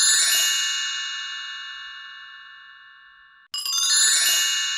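Intro chime sound effect: a short shimmering swish that rings into a bright, many-toned bell chime fading slowly over about three seconds. The same chime strikes again about three and a half seconds in.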